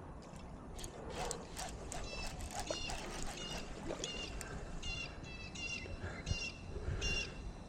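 Spinning reel's drag clicking out in short repeated bursts as a big bass pulls line against it; the drag is set too light for the fish.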